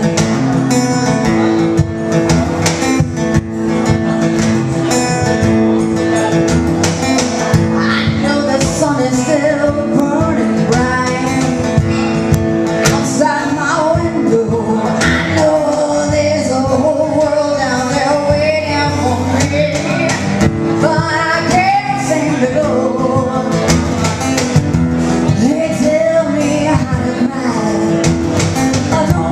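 Live acoustic song: a woman singing into a microphone over an acoustic guitar.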